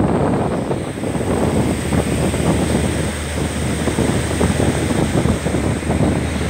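Wind buffeting the microphone over the rush of water churning along a moving ship's hull, with a steady low drone from the ship's engines underneath.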